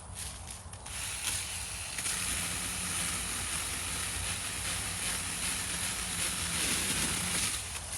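Cordless mini chainsaw running and cutting into the wood of a downed tree: a steady hissing buzz with a faint motor hum that starts about a second in, settles to full level about a second later and stops near the end.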